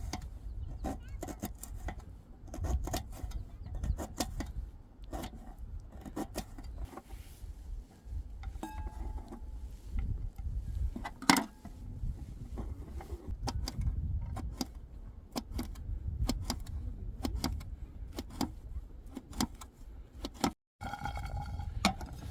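Scattered clinks, clicks and knocks of camp cookware and utensils being handled during food preparation, with one sharper knock about halfway through, over a constant low rumble. The sound drops out briefly near the end.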